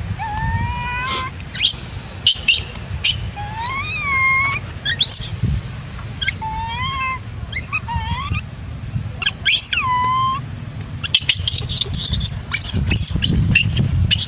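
Young long-tailed macaque crying for its mother's milk: a string of short, high-pitched whimpering coos, each rising then levelling off, with a burst of quicker, shriller squeals in the last few seconds.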